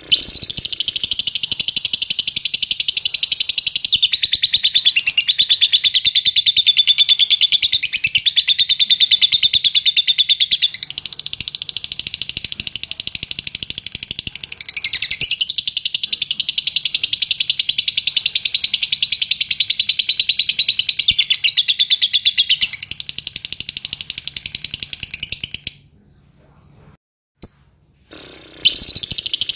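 Fischer's lovebird singing a long unbroken run of rapid, high chattering trills. The song stops about 26 seconds in, a single short call follows, and the song starts again near the end.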